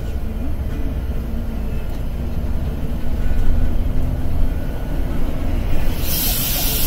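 Bus engine and road noise heard from inside the passenger cabin while driving: a steady low rumble with a faint hum. A loud, steady hiss comes in suddenly near the end.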